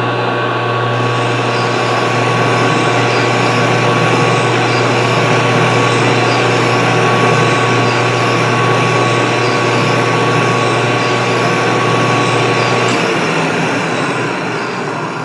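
Colchester engine lathe running under power through a thread-cutting pass: a loud, steady machine noise with an electric hum. About 13 seconds in the hum cuts out and the noise begins to die away as the lathe is shut off.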